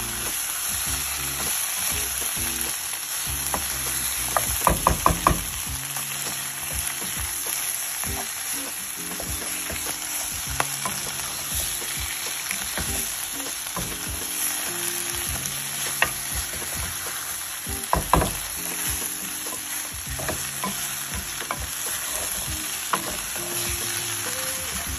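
Pork ribs and sausages sizzling in oil in a frying pan as a wooden spoon stirs and turns them, with a cluster of sharp knocks of the spoon against the pan about five seconds in and another about eighteen seconds in.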